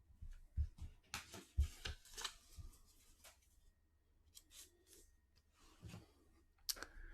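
Handling noises at a desk: a run of rustling and scraping with several clicks and a few soft thumps, then a shorter rustle and a sharp click near the end.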